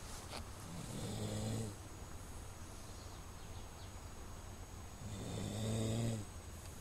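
A man snoring in his sleep: two low snores, each about a second long, some four seconds apart.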